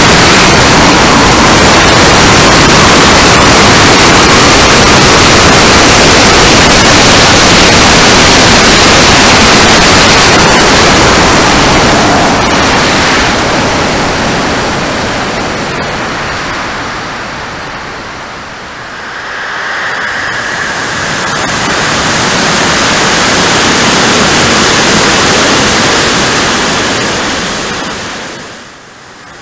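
Loud rushing noise of air and a jet turbine, picked up by a camera riding on a radio-controlled model jet in flight. The rush fades to its quietest about two-thirds of the way through, swells back, and drops off sharply just before the end.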